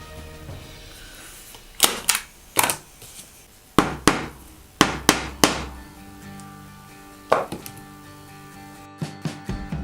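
Background music with a dozen or so sharp knocks or taps, coming singly and in quick pairs and threes.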